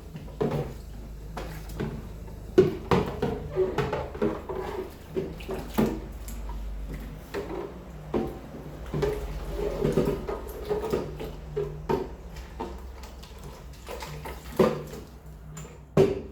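Food containers and kitchen items being handled and set down in and around a fridge: a run of short knocks, clicks and clatter, with a louder knock near the end.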